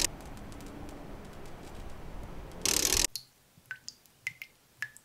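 Slow water dripping, single drops plinking one at a time, about four in the last two seconds, after a short loud mechanical sound effect about two and a half seconds in. Before that, a steady noisy ambience.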